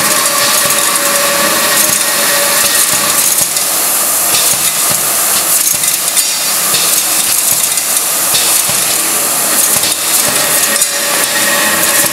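Step feeder running: screws with nuts clattering continuously as the stepped plates lift them and they slide onto the track, with a steady machine hum underneath.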